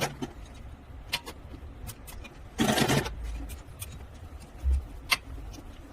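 Workshop handling noise: a low steady hum with a few sharp clicks and one brief scrape about two and a half seconds in.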